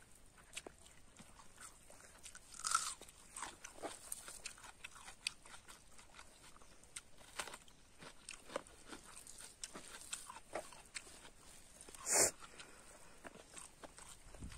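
Fingers kneading rice and curry by hand on a dry leaf-sheath plate: many small clicks and crackles, with two louder crackles a few seconds in and near the end.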